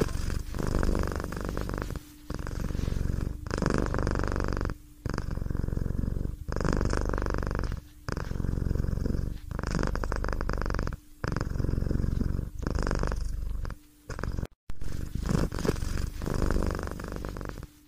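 Domestic cat purring close to the microphone, in regular stretches of about a second and a half broken by short pauses at each breath.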